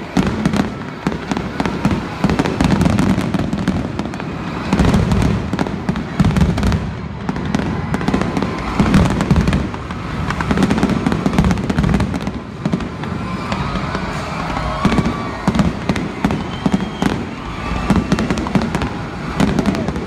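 Aerial fireworks shells bursting in quick succession: a continuous run of booms and crackling over a low rumble.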